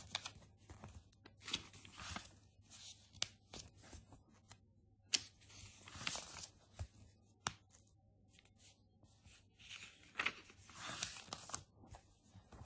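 Glossy catalogue pages being leafed through by hand: repeated rustling swishes of paper, with a few sharp snaps as pages flip over.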